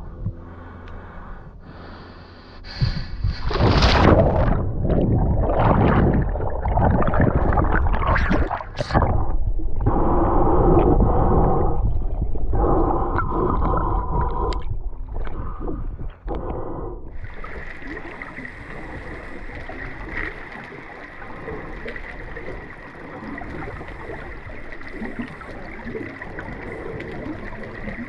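Water sloshing and gurgling close around a mask-mounted GoPro as a swimmer eases into a spring-fed river, in uneven loud surges. About two-thirds of the way in it settles into a steady rush of water with a faint high whine.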